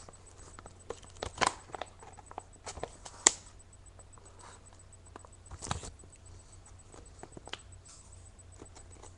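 Packaging being opened and handled: irregular rustles and small clicks, with a sharp click a little over three seconds in.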